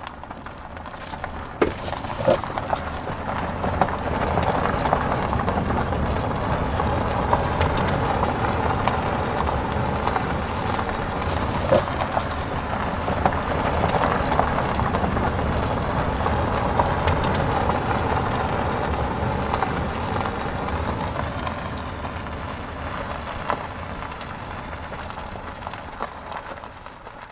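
Vehicle tyres rolling over gravel: a continuous crunching with scattered sharp pops of stones. It builds over the first few seconds, holds steady, and fades away over the last several seconds.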